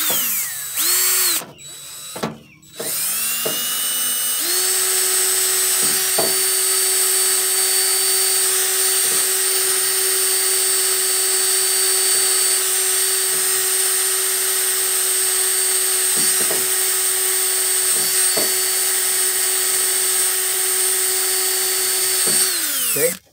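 Cordless drill spinning a wire wheel brush against a battery cable's ring terminal to scrub off corrosion. It starts with a few short bursts on the trigger, then runs at a steady pitch for about twenty seconds and winds down near the end.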